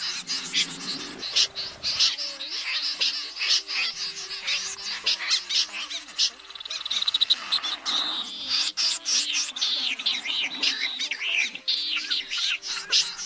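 Common snipe calling, many birds at once: rapid, overlapping rasping chips and chipper notes, with a quick rattling run about seven seconds in. Faint steady low tones of added background music sit underneath.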